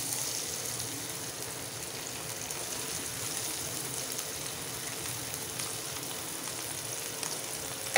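Finely chopped capsicum (green bell pepper) frying in hot oil in a pan, with a steady sizzle.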